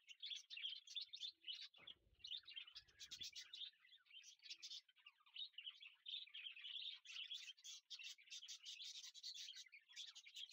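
Faint, continuous high chirping and twittering of small birds.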